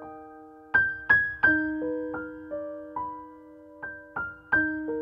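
Solo piano music: single notes struck one after another at an unhurried pace, each left to ring and fade while the next is played.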